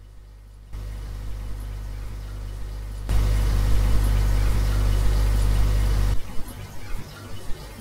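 An EVP recording played back at stepped gain: steady low hum and hiss, turned up about a second in, louder again about three seconds in, then quieter and noise-reduced from about six seconds in, with a few short clicks.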